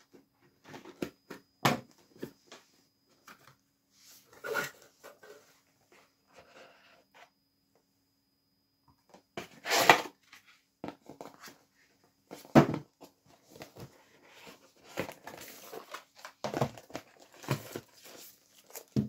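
Cardboard and packaging of a DJI Mini 2 retail box being handled as it is opened: irregular rustles and scrapes as the lid and a white inner tray come out, with several sharper knocks of cardboard.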